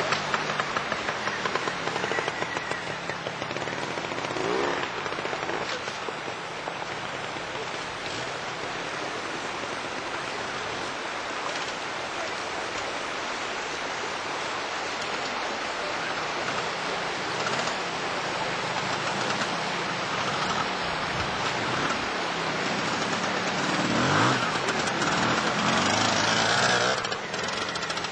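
Trials motorcycle engines revving and blipping as the bikes climb over rocks, with spectators' voices mixed in. There are short rising revs about four seconds in and again near the end, when the engine noise is loudest.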